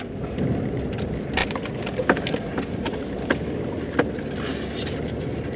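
Truck cabin noise driving slowly on a rough dirt road: a steady low rumble of tyres and engine, with frequent sharp clicks and knocks from the truck rattling over bumps and stones, the loudest about two seconds in and again about four seconds in.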